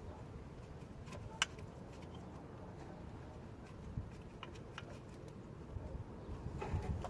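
A few faint, scattered clicks and light metallic knocks from hand tools working on the car, the sharpest about a second and a half in, over a low steady rumble.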